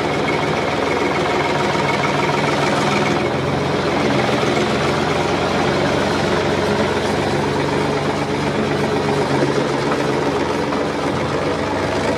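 Heavy farm-machine engine running steadily under load, its sound changing character about three seconds in.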